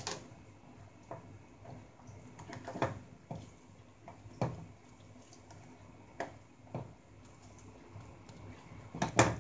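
A metal spoon stirring simmering red lentils in a stainless steel saucepan, clinking and scraping against the pot in scattered light knocks, with a quick cluster of knocks near the end.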